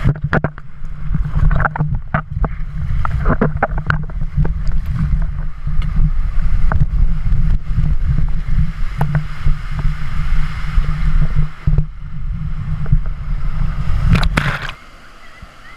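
Rushing, splashing water against a GoPro action camera, a heavy low rumble with scattered sharp knocks and splashes, which drops away suddenly near the end.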